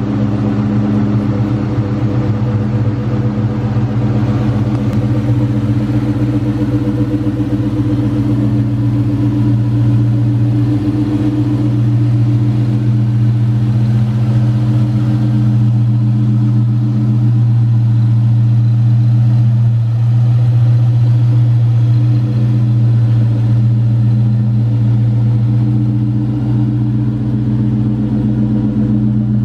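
A 2004 Ford SVT Cobra's supercharged 4.6-litre DOHC V8 idling steadily.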